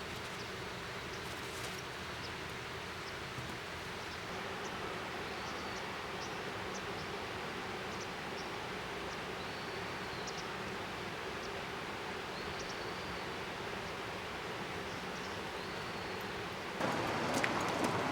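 Outdoor wood fire burning with a steady hiss and faint crackles, with a short high chirp every couple of seconds. The hiss turns suddenly louder and fuller near the end.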